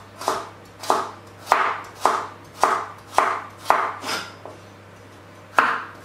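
Kitchen knife slicing a carrot into rounds on a wooden chopping board, each cut ending in a sharp knock on the board about twice a second. There is a pause of about a second before the cutting picks up again near the end.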